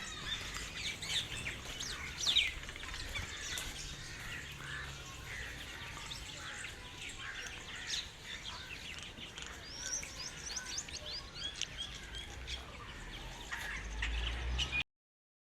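Small birds chirping and twittering in many short, quick calls over a faint outdoor background. The sound cuts off abruptly near the end.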